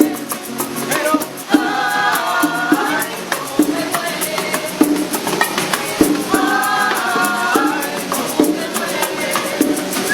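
Latin music with a fast, steady shaker rhythm and sung phrases, the voices coming in twice.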